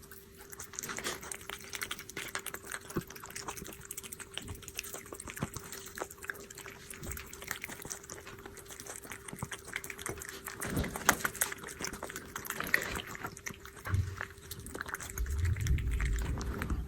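A cat eating wet mousse-style cat food: a run of quick, wet licking and chewing clicks. A few low thuds come near the end.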